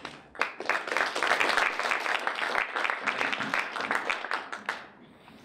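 Audience applauding. The clapping starts about half a second in, runs for about four seconds and dies away near the end.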